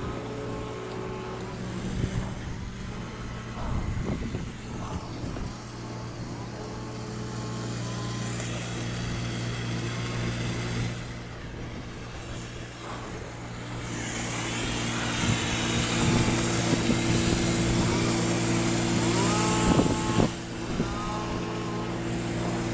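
Steady engine hum from the pressure-washing equipment, with the hiss of water spraying onto clay roof tiles; the spray grows louder from about fourteen seconds in.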